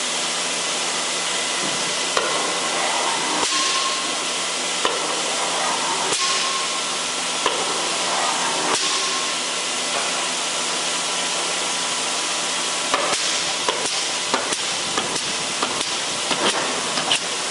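L&J No.80 80-ton mechanical OBI punch press with pneumatic clutch running under power: a steady motor and flywheel hum, with a sharp knock about every 1.3 s as the ram cycles. From about 13 s in, quicker irregular clicks and knocks.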